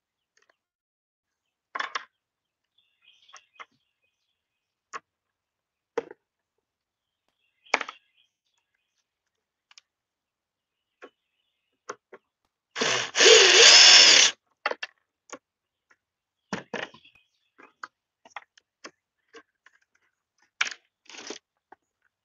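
Cordless drill running in one burst of about a second and a half midway, backing out a screw that holds the facemask to a football helmet. Scattered clicks and knocks of the helmet and its facemask hardware being handled come before and after.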